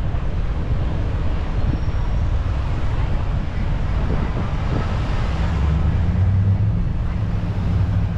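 Road and wind rumble from a car driving along a street, with a steady low engine hum coming in a little over halfway.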